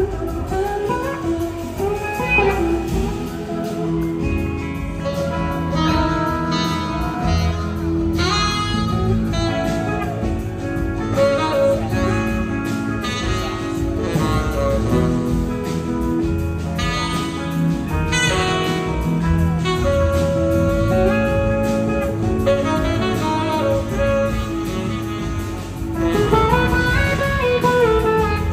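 Live band music: a saxophone plays a solo line over electric guitar and the band's accompaniment.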